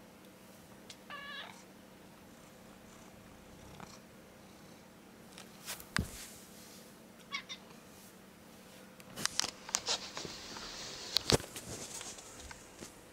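A domestic cat gives a short meow about a second in and a briefer call about seven seconds in. Several sharp clicks and some rustling follow in the second half.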